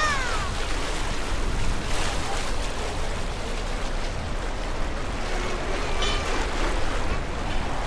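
Water sloshing and lapping close to the microphone, a steady rushing noise, with a brief high-pitched squeal at the start and a fainter one about six seconds in.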